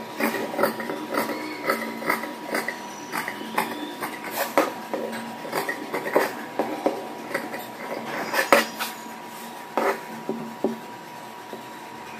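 Tailoring scissors snipping through blouse fabric: a run of irregular snips and metal blade clicks, a few a second.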